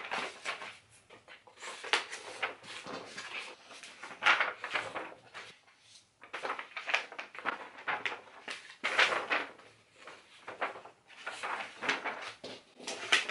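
Sheets of drawing paper rustling and crinkling as they are handled and swapped, in irregular bursts with several louder crackles.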